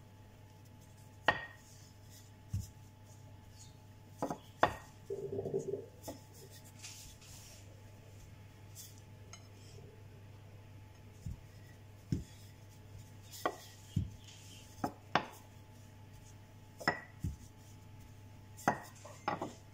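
Wooden rolling pin knocking on a granite countertop while bread dough is rolled out: about a dozen sharp separate knocks spread through, with a brief rolling rumble about five seconds in. A faint steady low hum lies underneath.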